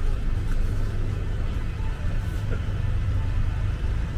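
Busy city street ambience: a steady low rumble of traffic, with faint music in the background.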